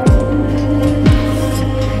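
Instrumental background music: sustained chords with a deep, falling bass hit about once a second.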